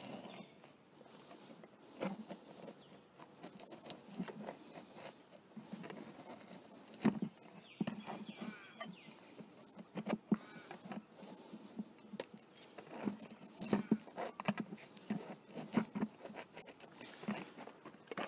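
Old drawn beeswax comb being scraped off a wooden frame's partial foundation with a hand scraper: irregular scraping strokes and small crackles and clicks as the wax breaks away.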